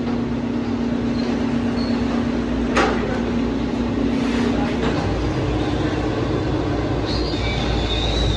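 Industrial sheet-metal machine working a 20-gauge steel sheet: its motor hums steadily, a sharp metallic clank comes about three seconds in, and about five seconds in the hum shifts up and a low rumble grows as the machine works.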